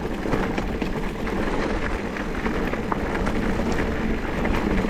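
Mountain bike rolling along a dirt singletrack: steady tyre rumble on the trail, with many small clicks and rattles from the bike.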